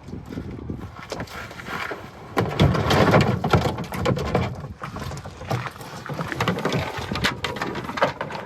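Water splashing and sloshing around a kayak, with irregular knocks and splashes, loudest about two and a half to four seconds in.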